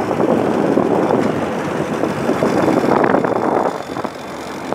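Tractor engine running as it drives along the road, heard from on board as a dense, rough rumble; the noise drops a little near the end.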